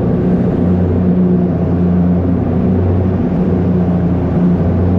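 An engine running steadily at constant speed, giving a loud, even low drone.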